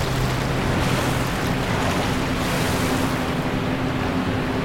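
Floodwater rushing and sloshing across a bathroom floor: a steady churning wash of water noise with a faint low hum under it.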